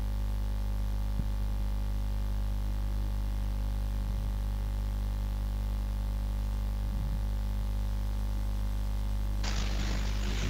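Steady electrical hum, a low buzz of evenly spaced steady tones. About a second before the end a hiss comes in.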